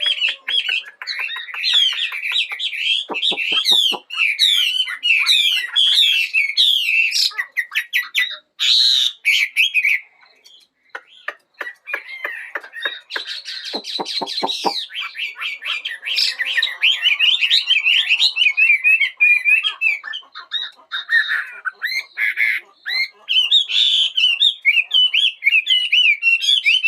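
Chinese hwamei (họa mi) singing a long, varied song of rapid whistled phrases, with fast rattling trills about three seconds in and again around fourteen seconds, and a brief pause near ten seconds.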